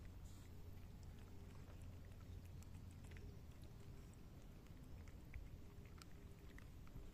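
Two cats eating dry kibble from a bowl, giving faint scattered crunches over a low steady rumble.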